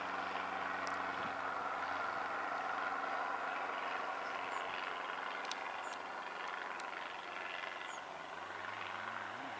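Boeing 737-800's CFM56 jet engines running steadily, a continuous rush with a low hum, as the airliner moves along the ground.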